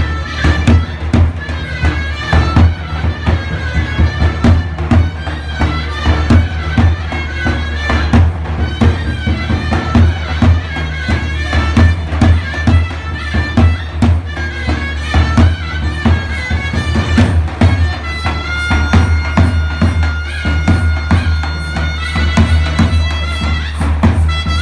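Zurna (loud folk shawm) playing a reedy dance melody over steady beats of a daouli, the large double-headed bass drum. About three quarters of the way in the zurna holds one long high note.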